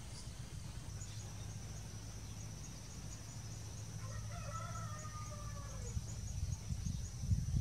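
A rooster crows once, a drawn-out call that falls at the end, about four seconds in. Under it run a steady high-pitched trill and a low rumble.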